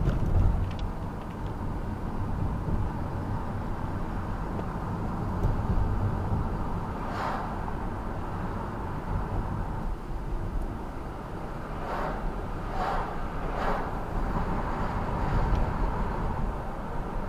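Steady low rumble of road vehicles, with a few brief hisses, three of them in quick succession about two-thirds of the way through.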